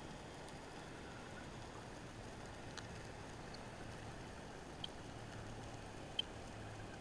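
Underwater ambience recorded from a camera in its housing: a faint steady hiss with a low hum, broken by a few short, sharp clicks about three, five and six seconds in.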